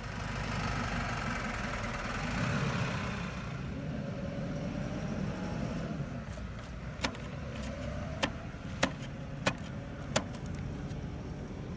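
A motor running steadily with a faint wavering tone, and five sharp clicks in the second half.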